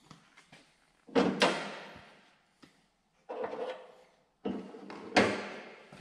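Three bursts of rummaging and clattering with sharp knocks: hand tools and small parts being handled and set down.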